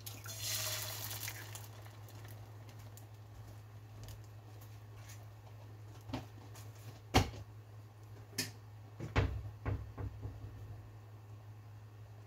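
An egg dropped into a hot, dry cast-iron skillet sizzles briefly, the hiss fading within about a second and a half. A low steady hum follows, with a few scattered clicks and knocks.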